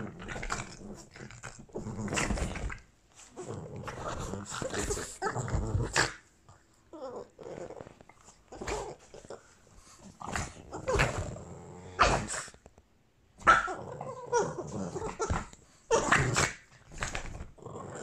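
Two Boston terriers growling and giving short barks at each other as they fight, in irregular bursts with brief pauses between.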